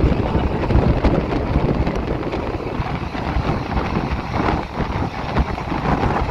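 Steady rumble and rattle of a moving passenger train heard from on board, with wind on the microphone.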